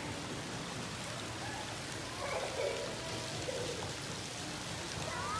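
Steady splashing and patter of water in an outdoor swimming pool, with faint voices about two seconds in.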